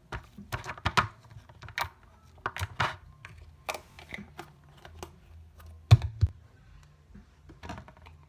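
Jiggly slime with foam beads being squeezed and poked by hand, giving irregular sharp popping clicks, the loudest about six seconds in.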